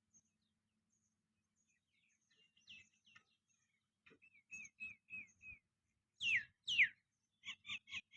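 A bird calling: first a few faint chirps, then a row of short even notes, two loud calls that fall steeply in pitch, and near the end a fast run of repeated notes, about four a second.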